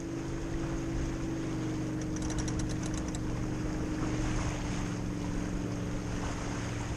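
Sailboat underway in light air: a steady wash of wind and water with a steady low hum underneath. A quick run of light ticks, about eight in a second, comes about two seconds in.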